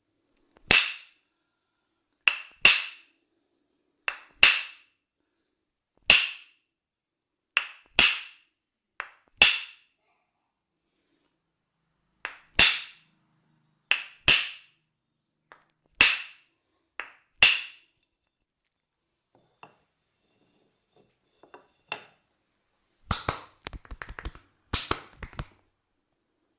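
Sharp smacks of a percussive massage on the head, neck and shoulders: about fifteen loud strikes, single or in quick pairs every second or two, each with a short ring. After a pause, a quick flurry of smaller cracks comes near the end.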